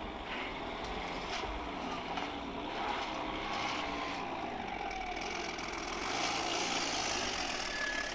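Audi four-wheel-drive car's engine running while driving off-road, its pitch rising and falling as the revs change.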